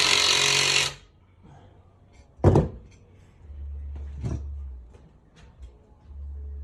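Workshop handling noises during engine work: a loud hiss for about the first second, then a loud thunk about two and a half seconds in and a softer knock a couple of seconds later.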